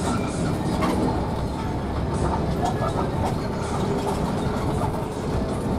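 Steady low drone of a moving intercity coach bus, heard from inside the cabin: engine and road noise, with a few faint knocks and rattles.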